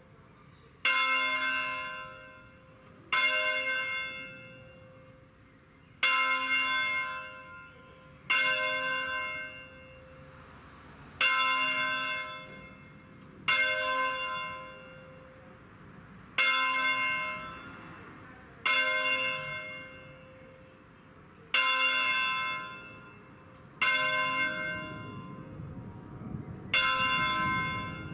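The 1928 Angelo Bianchi Do 4 (C) church bell swung continuously in an Ambrosian full-circle distesa, rung electromechanically. Its clapper strikes eleven times at slightly uneven, alternating intervals of two to three seconds, and each stroke rings out and fades before the next.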